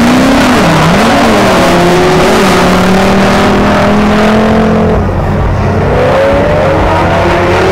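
Drift cars' engines revving up and down as the cars slide sideways through a corner in a tandem run, over a loud rushing noise that eases about five seconds in.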